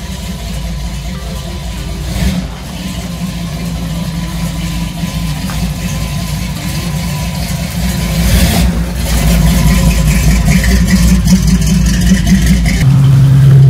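Pickup truck engine running, then revving as the truck pulls away about eight seconds in. About a second before the end, a louder, steady low engine drone suddenly takes over.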